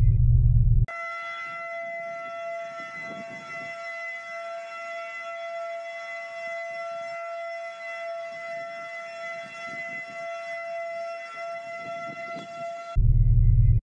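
Outdoor tornado warning siren holding one steady tone, warning of a tornado bearing down on the town, with a faint uneven rumble beneath it. It cuts in about a second in and cuts off near the end, with background music on either side.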